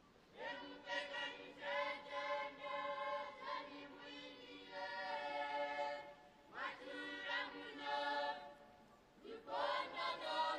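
A group of voices singing a hymn together in long held phrases, with a few short breaks between lines.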